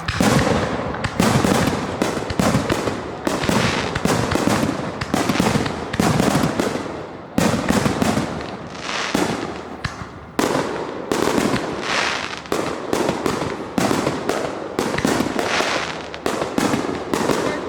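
Fireworks exploding in a dense, loud barrage, several sharp bangs a second one after another.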